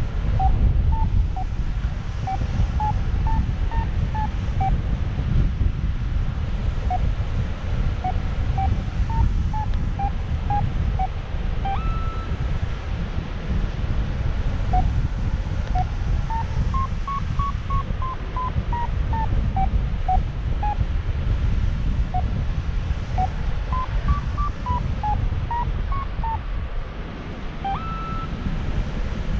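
Airflow rushing steadily over the microphone in paraglider flight, with a flight variometer's short beeps that step up and down in pitch in runs, the sign of weak, patchy lift. Twice, at about 12 seconds and near the end, a longer, higher tone sounds.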